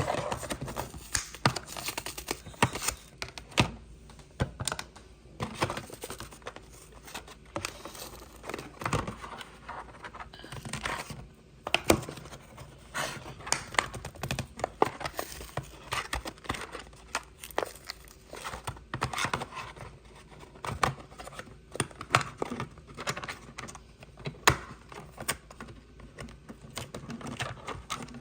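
Small die-cast toy car's packaging being opened by hand: irregular clicks, scratching, rustling, crinkling and tearing as the box is worked open and the model taken out.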